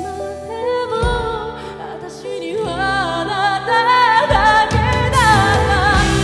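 A woman singing a pop ballad with vibrato over instrumental backing, her melody climbing to higher sustained notes about a second in.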